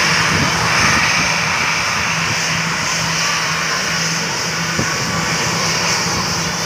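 Jet engines of an AirAsia Airbus A320 running at taxi power as it turns onto the runway and lines up for take-off: a steady, even jet noise with a high hiss.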